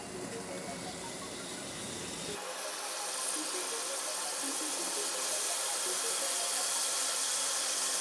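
Diamond-shaped pieces of egg-and-flour dough sizzling as they deep-fry in a pot of hot vegetable oil. The sizzle gets louder and brighter about two and a half seconds in, and keeps on steadily.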